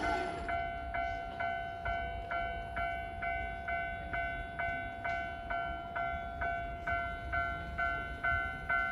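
Japanese railway level-crossing alarm ringing its electronic ding about twice a second, an even, repeating two-tone stroke, over a low rumble.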